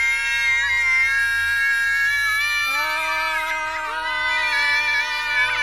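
Several voices, children's among them, holding one long sung "aah" together on steady pitches. A second, lower voice joins about two and a half seconds in.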